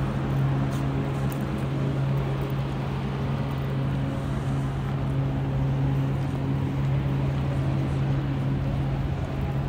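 Steady low mechanical hum that holds one pitch throughout, over general city-street noise.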